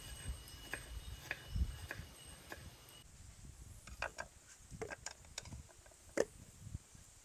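Small kitchen knife slicing shallots on a wooden cutting board: separate knocks of the blade against the board, a few a second. In the second half there are sharper clicks and taps as the pieces are handled.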